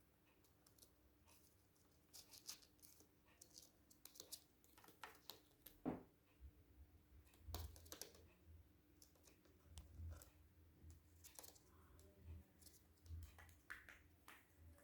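Faint, scattered light clicks and scratches, with one sharper tap about six seconds in.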